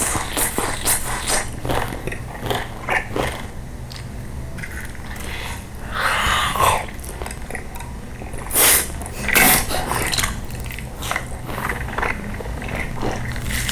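A dog eating, with many short chewing and smacking clicks.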